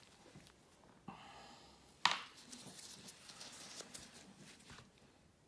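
Small handling sounds of a plastic tube of two-part epoxy being opened and squeezed: a short rustle about a second in, a sharp click about two seconds in, then scattered light clicks and taps.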